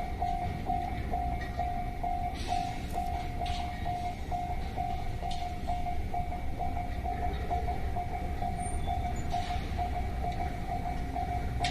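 Japanese railroad crossing alarm ringing steadily, about three rings a second, over a low steady rumble.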